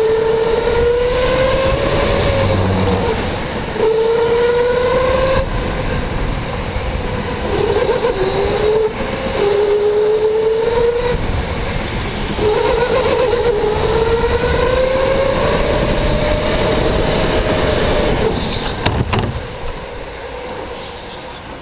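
Electric go-kart motor whining under the driver, its pitch rising as the kart speeds up and breaking off each time the driver lifts for a corner, over rough tyre and track noise. About three seconds before the end the whine stops and the sound drops to a quieter rumble as the kart slows.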